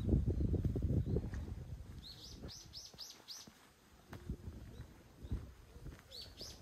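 A small bird calling a quick run of short falling chirps, about five in a row, then a few more near the end. A low rustling rumble in the first second and a half is the loudest sound.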